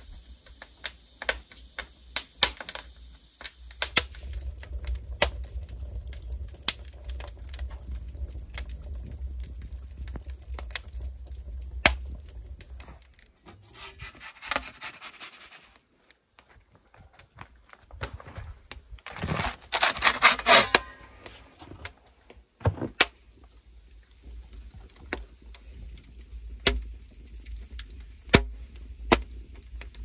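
Wood fire crackling and popping in a cob and brick wood-fired oven, with sharp snaps scattered throughout. A low rumble runs under it for several seconds, and a loud rasping noise lasts about two seconds just past the middle.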